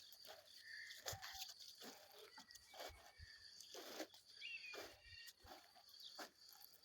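Faint, short high whistles from a bird of prey, which the uploader takes for an eagle or golden eagle. The clearest is a brief falling note about four and a half seconds in, with scattered rustling and knocks around it.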